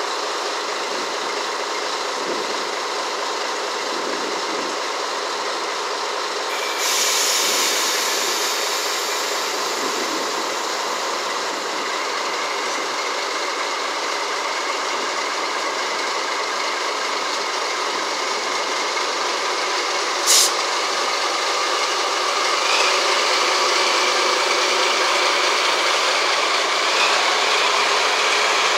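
DD51 diesel-hydraulic locomotive's twin V12 diesel engines running close by, a steady drone. The noise gets louder and hissier about seven seconds in, and there is one sharp click about twenty seconds in.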